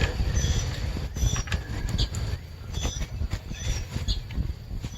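Plastic GMT400 HVAC box parts being handled and seated, giving scattered clicks, knocks and creaks. Short high bird chirps sound now and then in the background.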